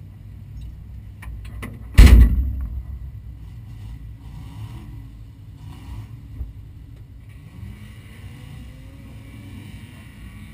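The mud-racing Jeep's door slammed shut once, about two seconds in: a loud bang with a brief ring, over a low steady rumble.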